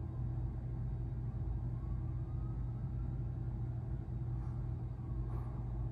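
Steady low hum of room background noise, with no distinct event.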